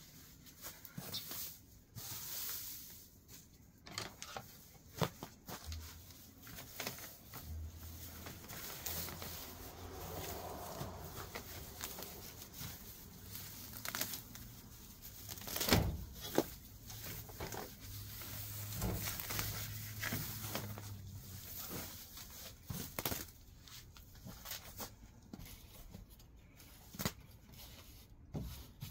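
Dry grass and weeds being pulled up by hand and stuffed into a woven plastic bag: irregular rustling, crackling and tearing, with one louder knock about halfway through.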